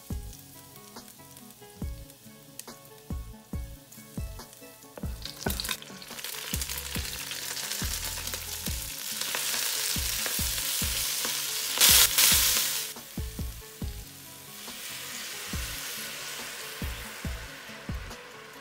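Chopped collard greens sizzling in hot oil and garlic as they are tossed with metal tongs. The sizzle swells about five seconds in, is loudest around twelve seconds, dies down, then rises again. Background music with a steady beat plays throughout.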